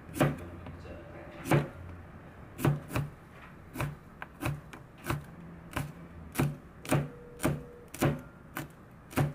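Knife chopping on a cutting board, about fifteen separate, fairly even strokes, roughly one or two a second.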